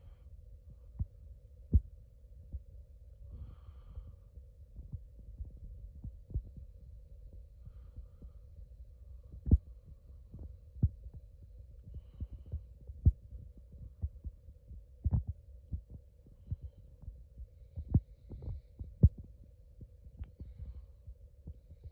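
Radio receiver static: a steady low hum with irregular crackling pops and low thumps, a handful of them sharp and loud.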